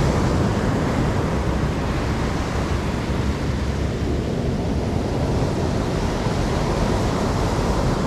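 Black Sea surf breaking close in and washing up a dark shingle beach: a steady rush of breaking waves and running foam.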